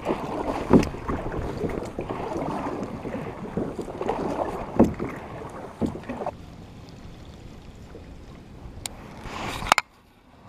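Kayak paddle strokes splashing and dripping in the water, with several sharp knocks along the way. The splashing eases off after about six seconds, and a short loud clatter near the end is followed by an abrupt cut to almost nothing.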